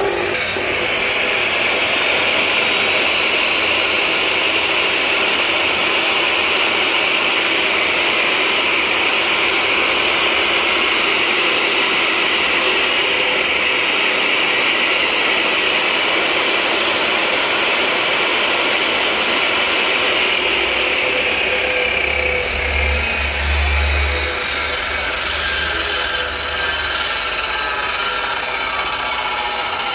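Makita electric saw with a 380 mm carbide-tipped blade running steadily under power. About two-thirds of the way through, the sound changes: a brief low rumble comes in and the higher whine fades.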